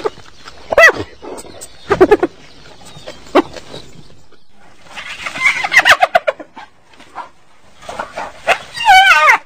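Spotted hyena giggling: several separate yelping calls that glide up and down, a busier run of cackling calls in the middle, and a quick quavering laugh near the end.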